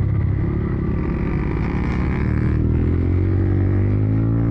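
Single-cylinder motorcycle engine running under way, its pitch climbing steadily through the second half as it accelerates.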